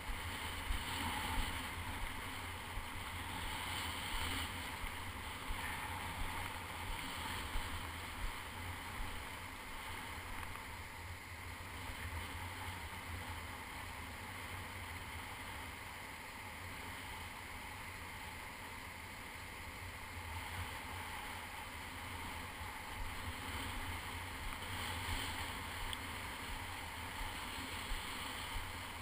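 Wind rumbling on the camera's microphone over the steady hiss of shallow surf washing up the beach.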